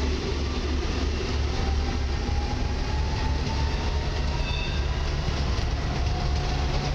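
ED250 Pendolino electric high-speed train pulling away along the tracks: a steady running rumble with a faint whine that rises slowly as it gathers speed and draws off.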